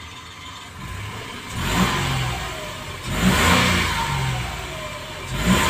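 Mitsubishi Mirage G4's 1.2-litre three-cylinder engine revved in Park, heard from inside the cabin: three blips up to about 3,000 rpm, each falling back toward idle.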